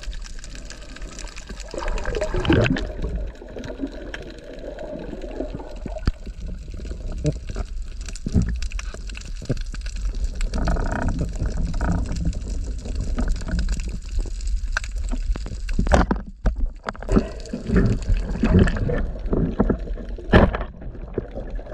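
Muffled underwater water noise, heard through an underwater camera's housing as a diver swims: a steady low rumble with gurgling and many small clicks, and a brief dip about three quarters of the way through.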